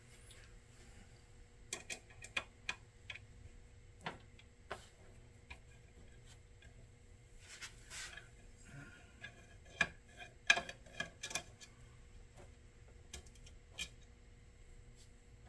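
Irregular small clicks and ticks of a precision screwdriver and small screws working on the metal housing of an xTool D1 Pro laser module as it is taken apart, with a denser run of clicks about two-thirds of the way through.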